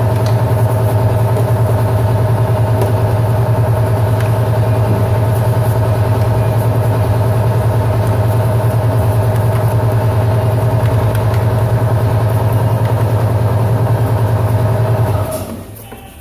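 A motor running steadily with a low hum, then shutting off about fifteen seconds in.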